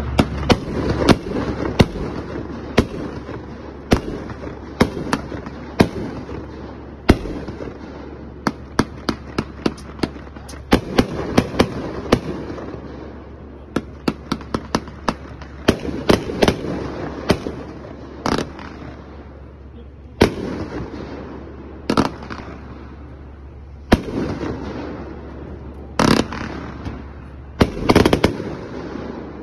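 A 40-shot fireworks cake firing: a long, irregular string of sharp shots and aerial bursts, at times several a second, with crackling after many of the breaks. Towards the end the reports come singly, about every two seconds, and are louder.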